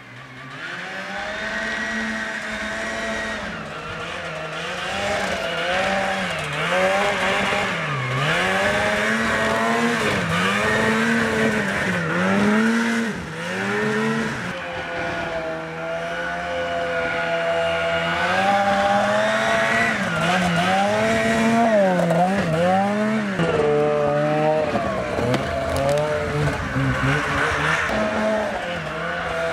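Small snowmobile ridden hard through the trees, its engine revving up and down over and over, the pitch dropping and climbing again every second or two.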